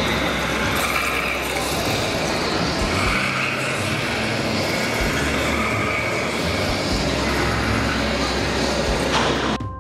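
Loud, dense, steady ambient noise in the dark forest exhibit with giant animatronic spiders, with a low hum underneath and faint voices mixed in. It cuts off suddenly near the end.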